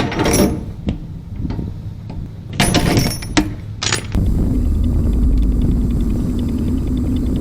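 A few clattering knocks and rattles, then from about four seconds in the steady low rumble of a Volvo semi-truck's diesel engine running.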